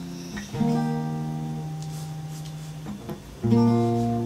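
Acoustic guitar intro: chords struck and left to ring out, fading slowly, with a new chord about half a second in and another near the end.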